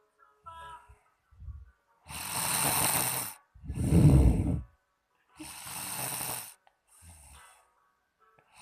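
A woman snoring in her sleep: rasping breaths a second or so long, with a deep rumbling snore about four seconds in, the loudest, and short quiet pauses between breaths.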